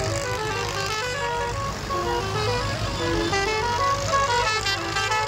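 Several looping electronic beeping tunes, short stepped notes repeating over and over and overlapping each other, over the steady low running of tractor engines.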